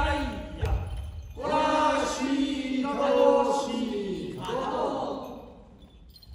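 Voices chanting a taue odori rice-planting dance song, with a couple of low thumps near the start. The chant dies away about five seconds in.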